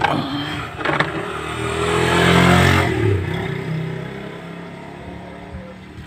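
A motor vehicle's engine swelling to a peak a couple of seconds in and then fading away, as a vehicle going past. A sharp click at the start and another about a second in.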